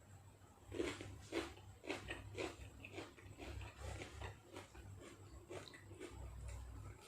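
A person chewing food close to the microphone, the wet chewing noises coming in regular strokes about twice a second.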